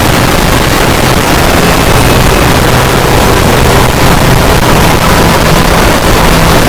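Very loud, harsh distorted noise spread evenly across all pitches, with a low hum underneath, running steadily without a break.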